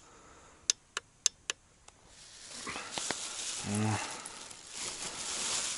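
Four sharp clicks in quick succession, about a quarter second apart. Then a black plastic bag rustling as hands handle it at a backpack, with one brief vocal sound partway through.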